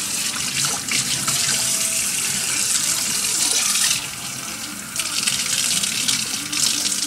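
Steady rush of running water, like a tap running into a sink, easing off for about a second some four seconds in.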